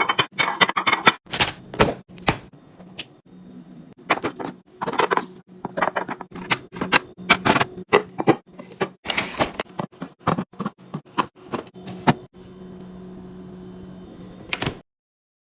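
Refrigerator organizing: containers, lids and items being handled and set down, in a run of sharp clicks, taps and knocks, several a second at times, over a steady low hum. The sound cuts off suddenly near the end.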